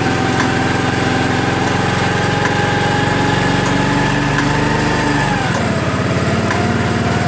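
Honda CD70's small single-cylinder four-stroke engine running at light throttle in gear, spinning the rear wheel and drive chain, with the revs dropping a little about five seconds in. Under the engine noise the chain gives an intermittent tak-tak tick, which could come from a worn chain lock (master link), a worn front sprocket or a loose or broken chain roller.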